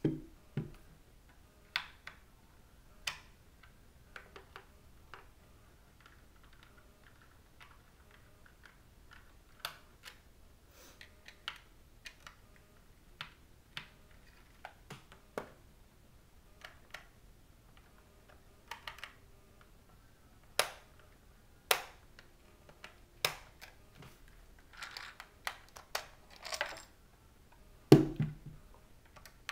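Small Phillips screwdriver backing screws out of a Halo paintball hopper's plastic shell: scattered, irregular clicks and light plastic knocks from handling the loader, with a louder knock near the end.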